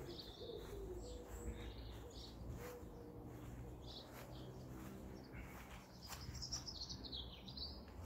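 Garden birdsong: small birds chirping and twittering in short high calls, with a longer run of chirps near the end, and a pigeon cooing low in the first few seconds.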